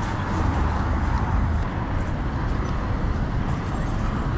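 City street traffic noise: car engines running nearby, a steady low rumble.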